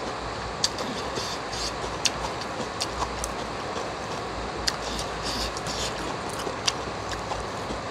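Steady heavy rain. Over it come several sharp clicks of chopsticks and a metal spoon knocking against a plastic food container as noodles are stirred.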